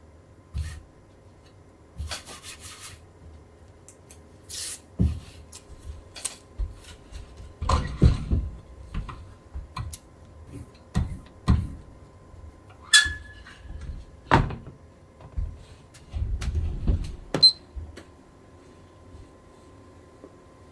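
Silkscreen printing tools and equipment being handled: irregular knocks, clicks and short scrapes, about a dozen in all, with a brief hiss about two seconds in and a short rubbing scrape near the end.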